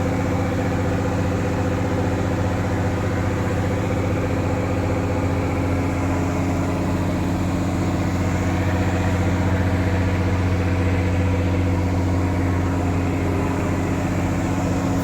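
A boat's engine running steadily with an unchanging low hum.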